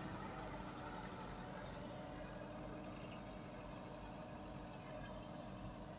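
Massey Ferguson 385 tractor's four-cylinder diesel engine running steadily under load as it pulls a laser land-levelling blade through loose sandy soil, slowly growing fainter.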